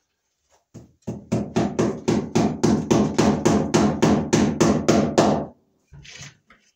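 Hammer blows on an overhead wooden floor joist, a fast even run of about five a second lasting some four seconds, then stopping: cable staples being driven to fasten new electrical cable.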